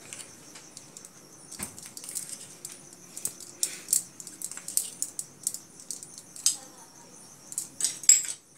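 Spoons clicking and scraping: turmeric scooped out of a small steel bowl and stirred into water in a pressure cooker, a run of light irregular clicks with the sharpest one near the end.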